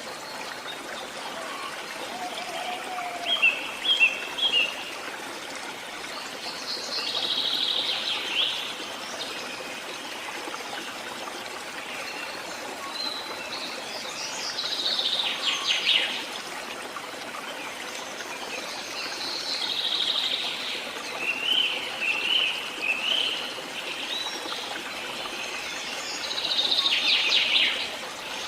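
Songbirds singing in short, repeated phrases every few seconds over the steady rush of a flowing stream.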